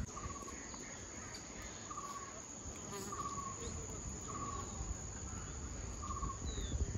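Calm hillside ambience: a steady high insect drone, with birds calling over it: a short trilled note repeated about five times, and a quick falling chirp near the end.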